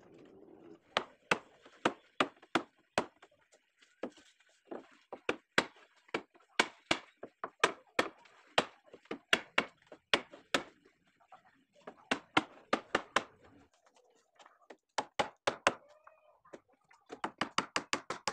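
Hammer driving nails into the wooden planks of a boat hull, sharp blows in irregular runs of two to three a second. Near the end a hand saw starts cutting through a plank with quick strokes.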